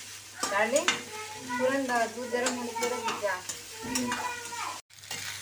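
A metal spatula stirring and scraping leftover rice around a steel kadhai as it fries and sizzles on a gas stove. The sound cuts out briefly near the end.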